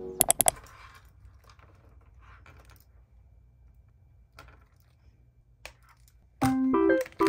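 Small handling sounds at a desk: three sharp clicks right at the start, then faint scattered clicks and rustles as an earbud case is turned in the hand. Piano music comes in about six and a half seconds in.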